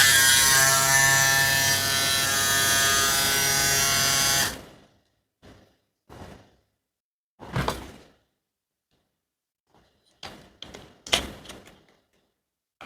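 Jucai Pro Minicandy hair trimmer's brushed motor running with a steady buzzing whine for about four and a half seconds, then switched off and winding down. This is followed by a handful of scattered clicks and knocks as the trimmer is handled.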